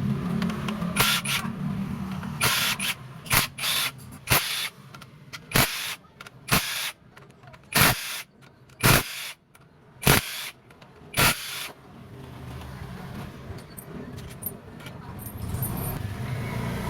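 About a dozen short, hissing blasts from a spray gun, fired in quick separate bursts while the motorcycle engine is cleaned of mud. The blasts stop about eleven seconds in, leaving a low background rumble.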